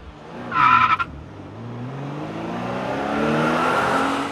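Car sound effect: a short tyre squeal about half a second in, then a car engine accelerating, its pitch rising steadily as it grows louder.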